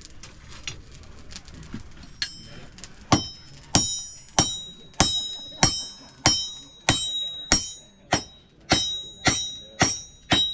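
Blacksmith's hammer striking hot iron on the anvil while heading a hand-forged nail in a nail header. A few light taps lead into a steady run of ringing blows, about one and a half a second, from about three seconds in.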